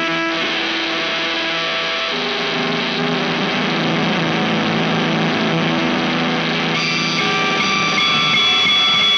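Electric guitar with P90 pickups played through a Space Sounds Galactic Fuzz pedal: loud, heavily fuzzed held notes and chords with a gritty, noisy edge. The tone gets brighter a couple of seconds before the end, then cuts off abruptly.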